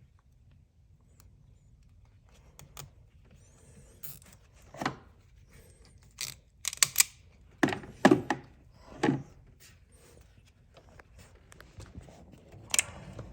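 A string of separate knocks, clunks and clicks of tools and parts being handled, the busiest and loudest cluster in the middle and one sharp click near the end.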